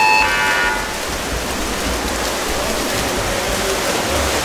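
Steady splashing and churning water of a water polo game, a constant even wash of noise in the reverberant pool hall. A pitched multi-tone sound carries over at the start and stops under a second in.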